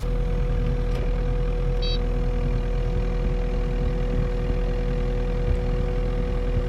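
A vehicle's engine running steadily close by with a constant low drone, as the vehicle works to drive out of deep snow where it was high-centred. A brief high chirp sounds about two seconds in.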